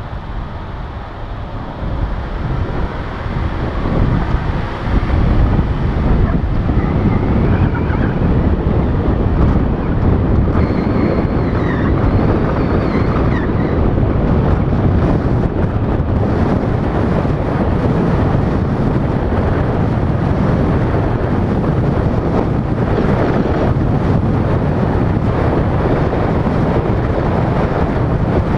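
Wind buffeting a GoPro action camera's microphone as it moves along a road, with road noise underneath. It grows louder over the first five seconds, then holds steady.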